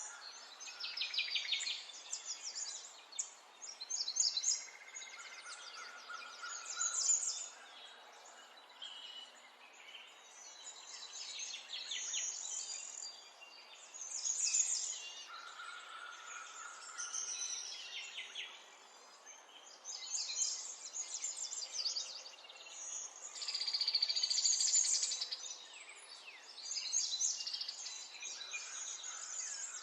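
Birds singing: high, rapid trilled song phrases following one another every second or two, with a few brief lower whistles, over a faint steady hiss.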